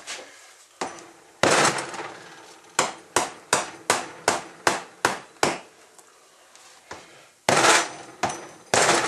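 Hammer blows on a garden tractor tire mounted on its rim, knocking the bead that has not seated into place. Two single blows, then a quick run of about nine strikes at roughly three a second, then a few heavier blows near the end.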